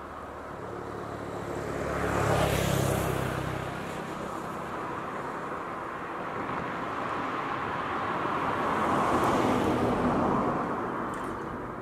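Road traffic: two cars pass by one after the other. The first goes by about two seconds in with a low engine hum and tyre noise. The second, mostly tyre noise, swells and goes by about nine seconds in.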